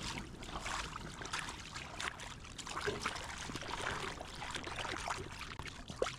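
River water trickling and sloshing, with irregular small splashes.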